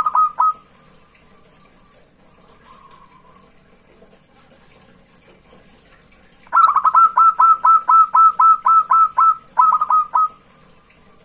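Zebra dove (perkutut) singing its rapid run of short, falling coo notes. A brief run ends just after the start. After a pause, a longer run of about fifteen notes begins around six and a half seconds in, with a short break near the end.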